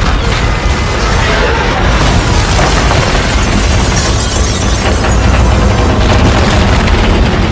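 Disaster-film earthquake sound design: continuous deep rumbling and crashing of collapsing buildings, mixed with dramatic film music.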